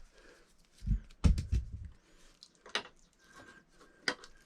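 A handful of scattered clicks and low knocks from Romex cable being handled as its sheathing is opened and the wires are spread apart. The loudest knocks come about a second in.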